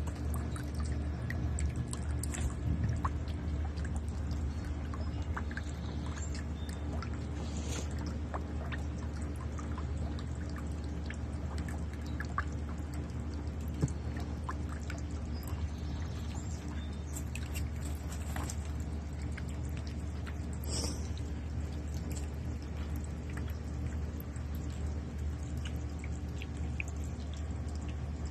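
A magpie bathing in a shallow birdbath: water pouring and splashing off its feathers, with scattered small splashes and taps, over a steady low hum.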